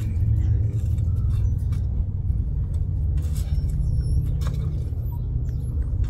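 Steady low rumble of wind buffeting the microphone, with the occasional soft scrape of a shovel digging into a pile of loose garden soil.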